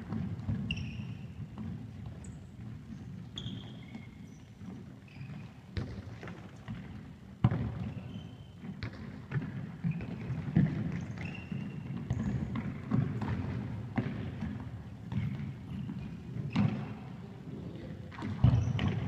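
Indoor football in a large sports hall: a ball being kicked and thudding, several sharp hits with the hardest about seven seconds in, echoing in the hall. Short high squeaks of trainers on the sports floor and the low rumble of running feet go on underneath.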